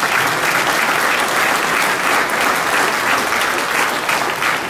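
Audience applauding steadily, a dense clapping that carries right through and begins to thin just after.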